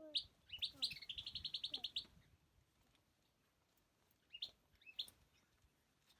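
A songbird singing: a few rising chirps run into a quick trill of about ten notes, followed by two single chirps later on.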